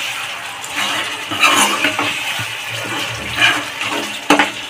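A spatula stirring potatoes through thick curd gravy in a non-stick kadhai: wet, sloshing stirring in a few swells, with one sharp knock against the pan near the end.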